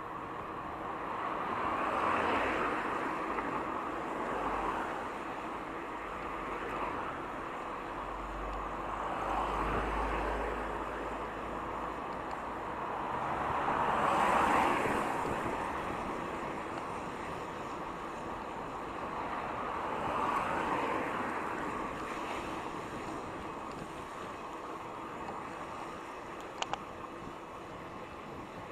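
Road traffic heard from a moving bicycle: a steady rush of wind and road noise, with four vehicles swishing past, each swelling and fading over a few seconds, the loudest about halfway through. A brief double click near the end.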